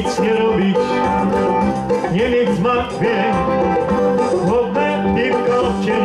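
Lively dance music playing loudly, an instrumental stretch of a Polish party song with no sung words.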